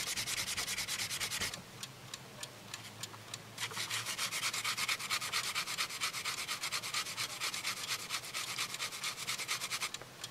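A small freshly zinc-plated screw rubbed by hand against a small abrasive polishing disc, dry with no polishing paste, to clean up the plating. It is a scratchy rubbing in quick, even strokes. The strokes ease off from about one and a half seconds in, then pick up again about two seconds later.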